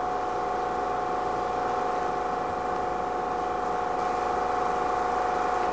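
Shop fan and air conditioner running: a steady drone with a constant pitched hum.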